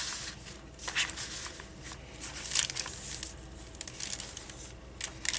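Paper pages and cards of a handmade junk journal rustling and crinkling as they are handled and turned, in several short bursts.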